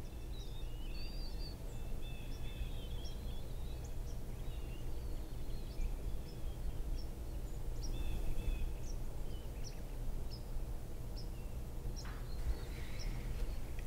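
Steady low background hum with faint bird chirps and short warbling calls scattered over it. The calls are busiest in the first few seconds and again about halfway through.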